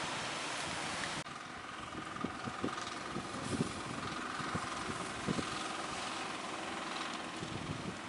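Surf and wind hiss, then, after an abrupt change about a second in, the engine of a motorized outrigger fishing boat running steadily as the boat passes close, with wind buffeting the microphone.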